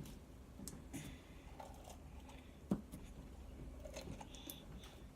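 Faint sticky squelches and small clicks of slime being worked out of its container by hand, with one sharper click a little under three seconds in.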